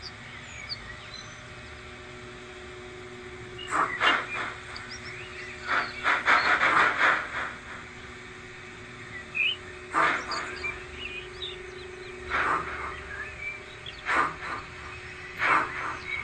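Sound decoders in two H0 model steam locomotives, a Roco ÖBB 86 and a Roco ÖBB 52 double-heading a freight train uphill, play slow, uneven steam exhaust chuffs, some bunched close together, over a steady hum.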